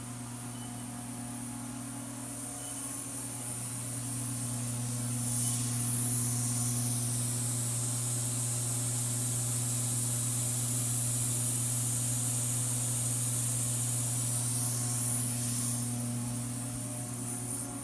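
Fadal 4020 vertical machining center running, with a steady low hum. A high hiss swells in over the first few seconds, holds, and dies away near the end.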